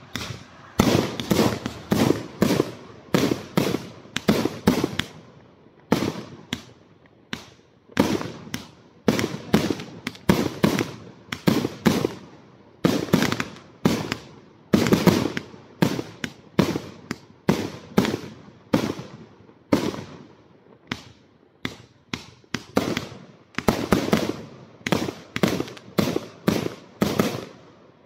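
A 120-shot, 30 mm fan cake firework firing its shots in quick succession: a string of sharp bangs, several a second, with short pauses now and then.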